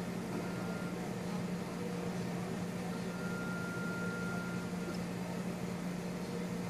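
Steady room hum of equipment or ventilation, with a low drone, and a faint thin high tone that comes in about three seconds in for a second and a half.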